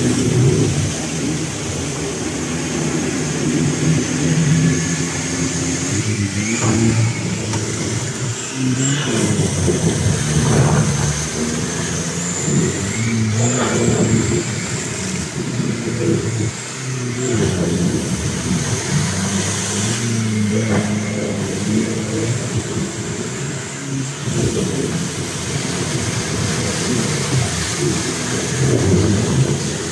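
Nissan Patrol Y61's ZD30 turbodiesel engine revving up and down repeatedly under heavy load while the lifted truck churns through deep mud, its big tyres spinning and throwing mud.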